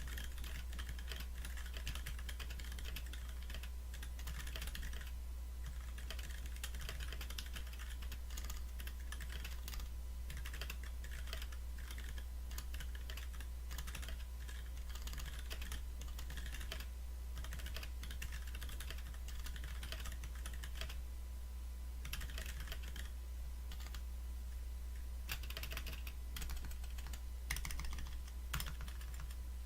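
Typing on a Mira SE mechanical keyboard with Clearsun switches on MX Black springs, GMK keycaps and Zeal stabilisers: fast runs of keystrokes with a few short pauses, over a steady low hum.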